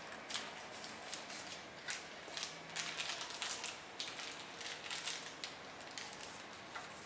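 Thin plastic packaging bag crinkling in the hands as a popsicle is slipped into it, a run of small irregular crackles and clicks.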